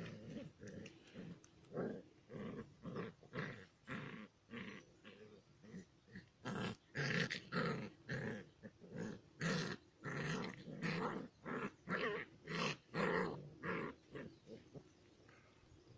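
Puppies growling in play as they wrestle, in short repeated bursts that grow louder about halfway through and tail off near the end.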